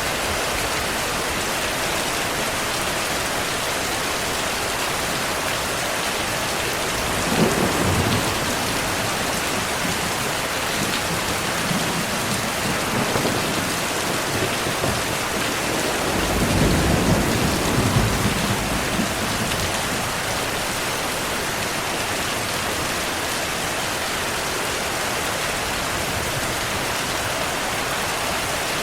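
Steady heavy rain hissing, with rumbles of thunder: a short one about a quarter of the way in and a longer, louder one a little past halfway.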